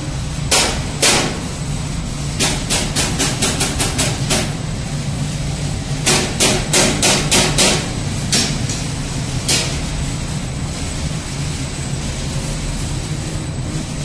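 Industrial microwave sterilization machine running, its cooling fans and magnetron power units giving a steady hum with a thin high whine. Over it come sharp knocks: two single ones, then two quick runs of about eight knocks at roughly four a second, then two more single knocks.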